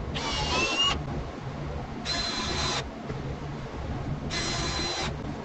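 Cordless drills running in three short bursts, each a high-pitched whine lasting under a second, as screws are driven and holes drilled into a wooden drawer box.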